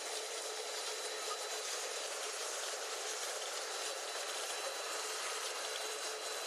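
Apple washing machine running: a steady hiss of water, with a faint steady whine underneath.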